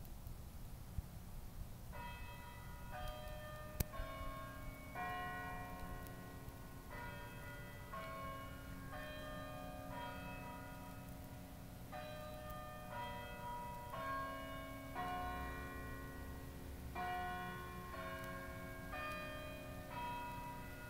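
Bells chiming a slow melody, starting about two seconds in, roughly one note a second in groups of about four with short pauses between, each note ringing on into the next, over a steady low rumble.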